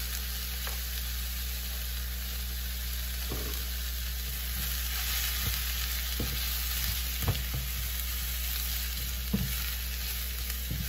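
Sliced mushrooms with onion and garlic sizzling in oil in a stainless steel pan, stirred with a spoon-spatula that taps and scrapes against the pan now and then, over a steady low hum.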